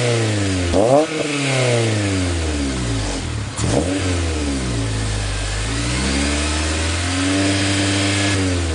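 FA5 Honda Civic Si's 2.0-litre K20 four-cylinder, breathing through a Vibrant header with high-flow cat and a Full Race 3-inch exhaust, revved in place. There are two quick blips, about a second in and about three and a half seconds in, each falling back toward idle, then a slower climb that is held briefly and eases off near the end.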